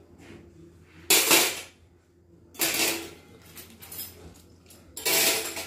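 Oven accessories being handled: three short clattering sounds, like metal trays or a glass lid knocking together, about a second in, about two and a half seconds in, and near the end.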